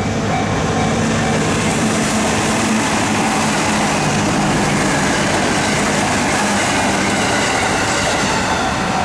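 A JR Sanyo Main Line train passing over a level crossing, a loud steady rush of wheel and rail noise. The crossing's alarm bell rings in a repeating pattern at the start, is drowned out while the train goes by, and is heard again near the end.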